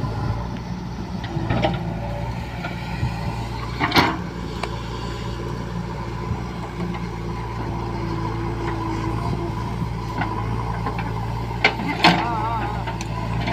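JCB 3DX backhoe loader's diesel engine running steadily under the load of digging, with a few sharp knocks about four seconds in and again near the end.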